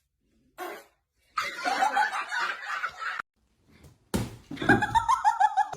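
A person laughing in short pulses, in pieces broken by brief silences, the loudest bout near the end.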